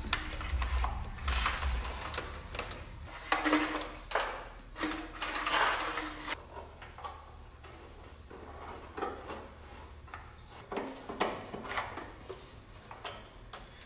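Irregular rustling and scraping as an electrical wire is handled and pulled through a car's wiring harness in the engine bay, with a few small clicks and knocks. The busiest stretch is a few seconds in.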